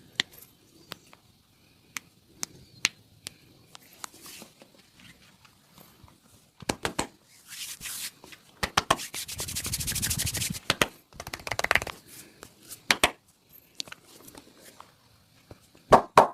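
Hands massaging bare skin: rubbing and friction with scattered sharp slaps. In the middle comes a rapid run of strikes, and a loud sharp strike near the end.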